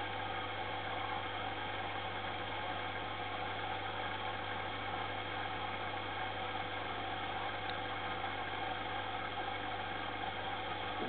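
Steady mechanical hum of running aquarium equipment: a constant low drone with an even whir above it that does not change.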